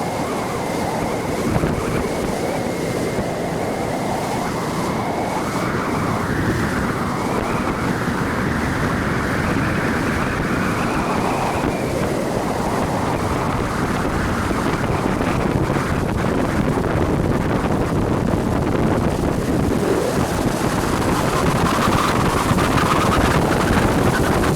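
Yamaha jet ski running on the water, its engine whine rising and falling in pitch as the throttle changes, over the rush of water and wind buffeting the microphone.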